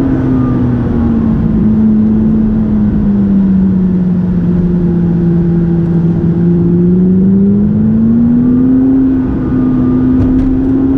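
McLaren 570GT's twin-turbo V8 running while driving, one steady engine note that slowly sinks in pitch over the first five or six seconds, then climbs again as the car picks up revs in the second half.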